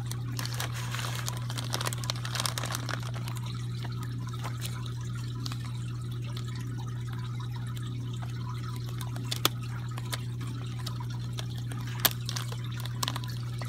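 Aquarium water trickling over a steady low hum. There is light crackling in the first few seconds and a few sharp clicks later on.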